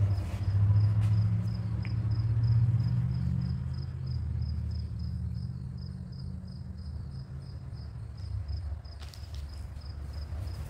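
An insect chirping in a faint, high, evenly repeated pulse about three times a second, over a low steady rumble that is louder in the first half.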